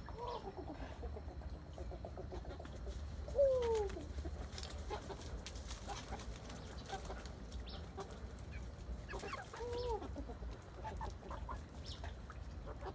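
Backyard chickens clucking, with scattered short clucks and a few longer drawn-out calls. The loudest call, about three and a half seconds in, slides down in pitch.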